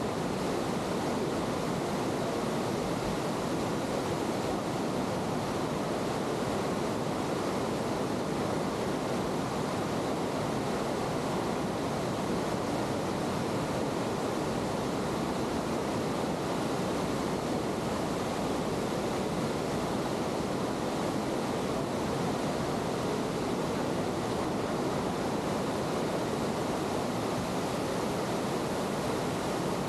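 Fast glacial meltwater river rushing and foaming over boulders in a rocky gorge: a steady, unbroken rush of water.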